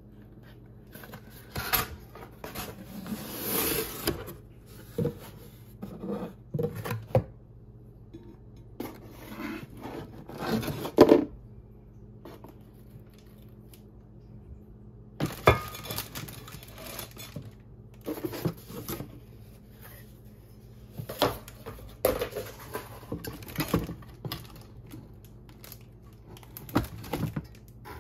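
Unboxing an enamelled cast-iron Le Creuset pot: cardboard packaging rustling and scraping, with sharp knocks as the heavy lid and pot are handled. The loudest knocks come about eleven and fifteen seconds in.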